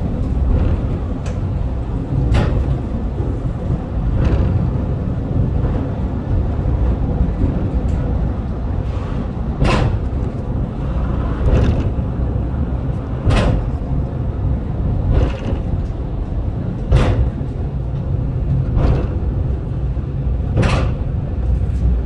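Funicular cable car running downhill: a steady low rumble with repeated clunks, mostly about two seconds apart.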